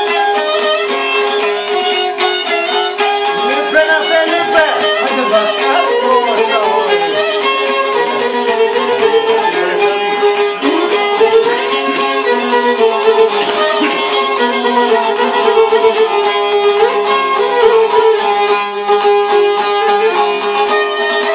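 Live Albanian folk music: a violin plays the tune with long-necked plucked lutes (çifteli) strumming along over a steady drone note.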